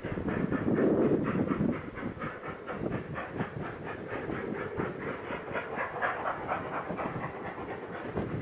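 Narrow-gauge steam locomotive working hard upgrade, its exhaust chuffing in a fast, even beat of about four to five chuffs a second. It is louder for the first second or two.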